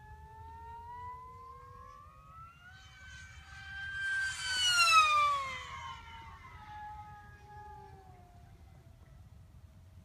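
A model airplane's motor whining as the plane flies close past: the pitch rises as it approaches, gets loudest about halfway through, then drops sharply as it goes by and fades away.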